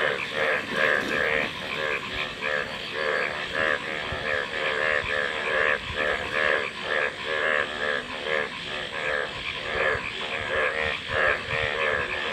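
Frogs croaking in a chorus: a fast run of repeated croaks that goes on without a break.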